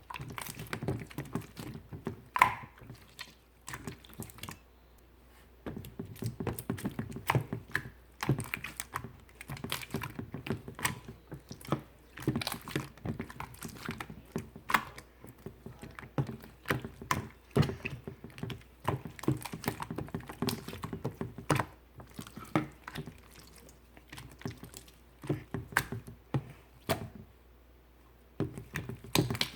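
Clear blue slime being squished and poked by hand, giving dense, irregular clicking and small popping sounds, with brief pauses about four seconds in and near the end.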